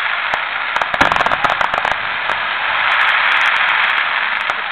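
Fireworks crackling densely: a steady hiss of crackle studded with sharp pops, thickest about a second in.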